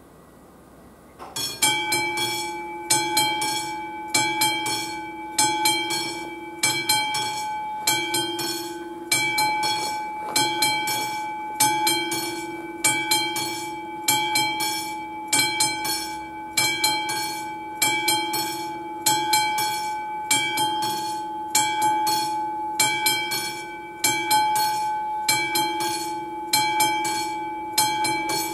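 AŽD 71 level-crossing warning bell, a classic electromechanical bell, starting to ring about a second in and then striking continuously, with a louder stroke about every second and a quarter. It signals that the crossing has been activated for an approaching train, with the barriers still up.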